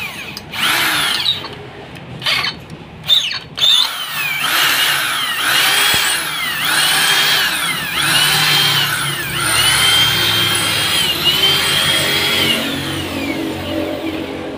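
Corded electric hand drill boring into a cast metal electric-motor end cover. A few short trigger bursts come first, then about six spin-ups in a row, each whine rising, holding and falling away as the trigger is squeezed and released.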